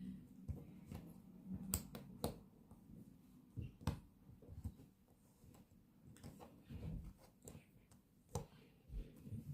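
Faint, scattered clicks and taps of cardboard jigsaw pieces being handled and pressed into place on a table, a few sharper ones standing out.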